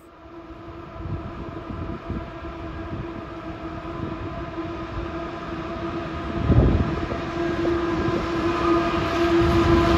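CEY-class diesel locomotives approaching at the head of a loaded coal train, with a steady engine drone over rumble that grows louder as they near. There is one heavier low thud about six and a half seconds in.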